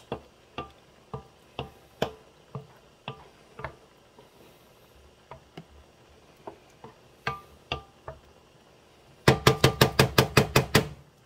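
A wooden spoon knocks against the side of a pan while it stirs a thick tomato sauce, about two knocks a second. Near the end comes a quick run of about a dozen louder taps on the pan.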